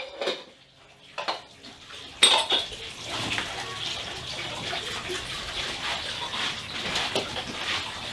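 Kitchen sink: tap water running steadily while dishes and utensils clink. It starts with a knock about two seconds in, after a couple of quiet seconds.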